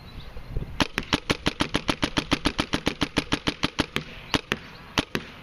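J4 Torque paintball marker firing rapidly at about 280 feet per second, close to the microphone: a quick string of sharp shots, about eight a second. After a short pause near four seconds in come a few more shots.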